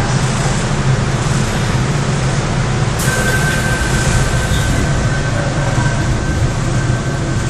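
Inside a Seoul Metro 4000-series subway car standing at a station, the car's equipment keeps up a steady low hum. About three seconds in a steady high warning tone starts and lasts about four seconds while the doors close.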